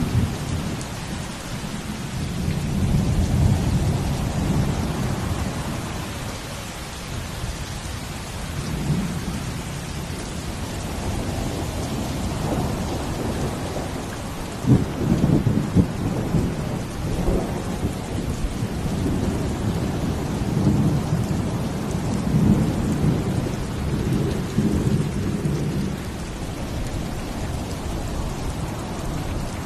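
Steady rain falling over a deep rumbling that swells and fades every few seconds, with a sudden sharp crack about fifteen seconds in.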